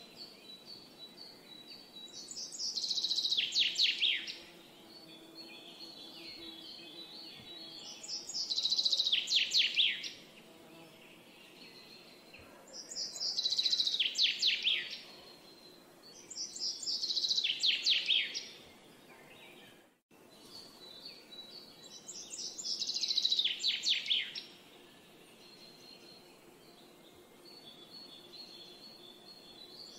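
A songbird repeating a short song phrase about every four to five seconds, each phrase a quick run of notes falling in pitch, with fainter high thin notes from other birds in between. The sound cuts out briefly about two-thirds of the way through.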